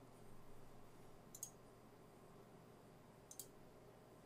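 Two faint computer mouse clicks about two seconds apart, over near-silent room tone, as Word's Page Setup dialog is opened.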